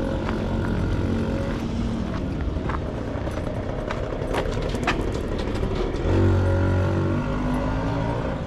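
Motorbike engine running in a narrow alley, steady throughout and louder from about six seconds in, with a few sharp clicks midway.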